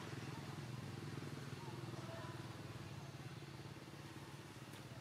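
Steady low hum of an engine running, with a few faint, short, high squeaks over it.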